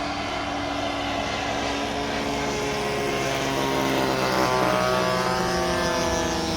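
Small model jet turbine (about 4.5 kg thrust) in an RC Su-35 running with a steady whine. From about three seconds in, its pitch climbs as it spools up.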